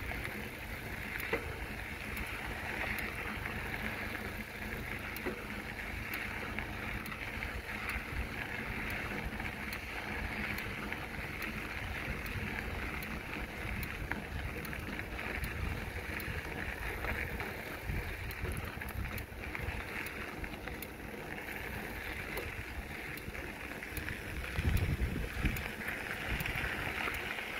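Wind buffeting the microphone and bicycle tyres rolling along the trail during a ride: a steady rushing noise with a low rumble, gusting stronger near the end.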